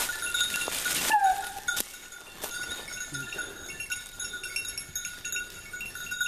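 Hunting hounds giving tongue as they work a scent trail, with one bay about a second in that falls in pitch. A steady high ringing tone runs underneath, and a rustling noise fills the first second.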